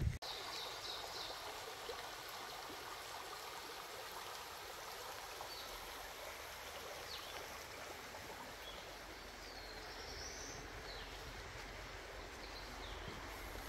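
Shallow stream running over a rocky bed, a steady, even rush of water. A few faint, short high chirps sound above it.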